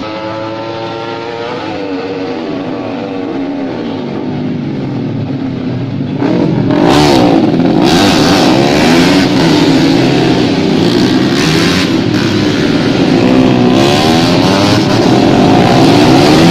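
Small racing motorcycles' engines revving and passing, their notes rising and falling. It grows much louder about six seconds in, when several bikes are heard at once with overlapping engine notes.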